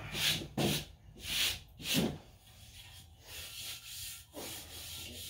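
Hand sanding the red factory paint on a steel trailer part: rasping back-and-forth strokes, louder and quicker in the first two seconds, then lighter. The paint is being scuffed so that new paint will adhere.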